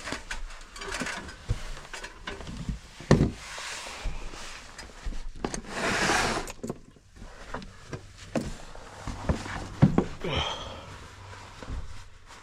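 Handling noises as someone works around equipment: scattered clicks and knocks, with a sharp knock about three seconds in and another near ten seconds, and a brief rustling scrape around six seconds.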